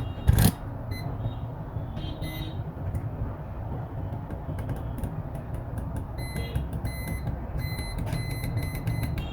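A sharp click, then a steady low hum with short high electronic beeps coming irregularly, more often in the second half.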